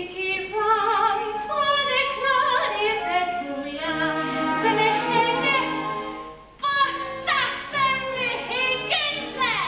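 A woman singing a musical-theatre song in Czech in a full, operatic-style voice over instrumental accompaniment, with a short break about two-thirds of the way in before she comes back in loudly.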